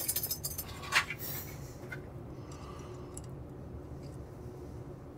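A few light metallic clicks in the first second and a half as a folding hex key set and a bandsaw's blade-guide bracket are handled, the strongest about a second in, then only a faint steady low hum.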